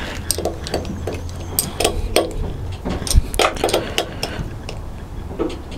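Spanner clicking and clinking on the blade-locking bolts of a planer thicknesser's cutter block as they are tightened, in short irregular metallic ticks.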